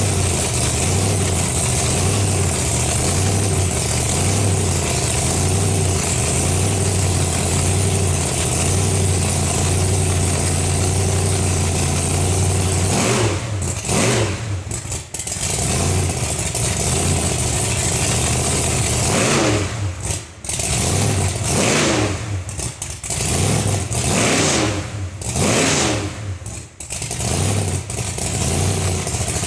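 Rat rod coupe's engine running through open zoomie headers. It idles steadily and lumpily for the first half, then is revved in a series of quick throttle blips.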